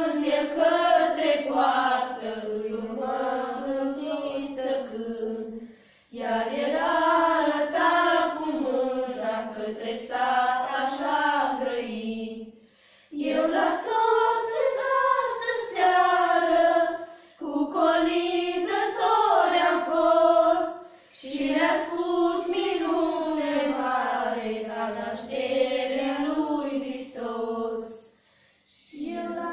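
A group of teenage girls singing a traditional Romanian Christmas carol (colind) in unison and unaccompanied, in long phrases broken by short pauses for breath.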